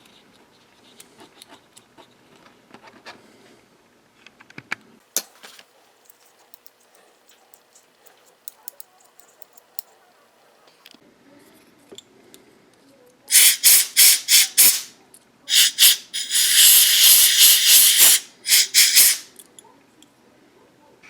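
Aerosol can of electronics cleaner spraying: a few short hissing bursts, then one longer burst of about two seconds and a last short one. Before that, faint clicks of small plastic switch parts being handled.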